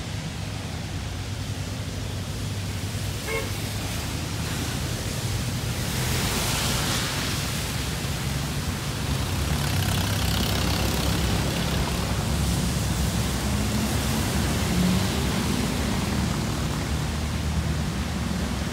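Road traffic on wet asphalt: cars pass with their tyres hissing through the water over a low engine rumble, swelling as vehicles go by about six and ten seconds in. A brief beep about three seconds in.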